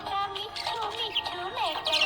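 Music with a sung, bouncy melody, likely a children's song, mixed with the high chirps and warbles of budgies.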